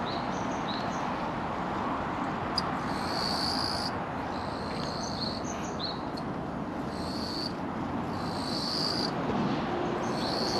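Insects calling in short high buzzing phrases, each about a second long, repeated every one to two seconds, with a few faint short chirps between them, over a steady background hiss.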